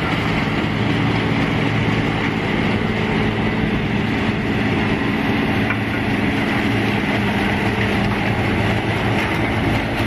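Sugarcane harvester chopping cane and throwing the billets up its elevator into a wagon, with the tractor pulling the wagon alongside. A loud, steady mechanical din over a constant low engine hum.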